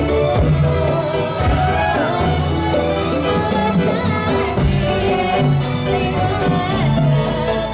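Dolalak folk music: a song sung over drums and other instruments, with a steady beat.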